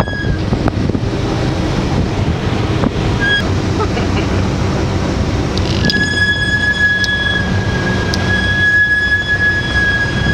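Lamborghini Huracán's V10 rumbling at low speed with wind on the microphone, and a steady high brake squeal that comes in briefly, then holds from just past halfway; the squeal is put down to a BMW's brakes.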